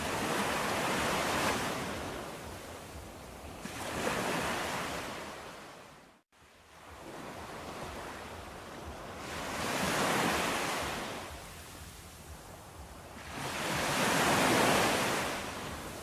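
Surf: waves rushing in and fading away, four swells in all, with a momentary silent gap about six seconds in.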